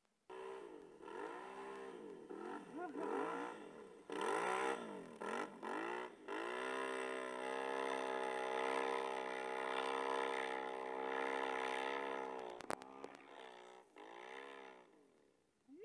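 Can-Am Renegade ATV V-twin engine revving up and down in quick swings, then held at steady high revs for several seconds. There is one sharp knock, then more revving that dies away near the end.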